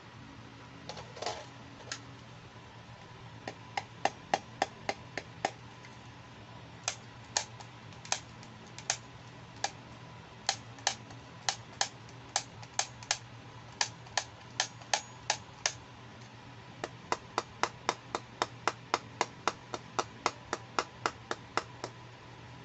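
A plastic toy camera's shutter button clicked over and over: runs of sharp clicks, about two to three a second, broken by short pauses.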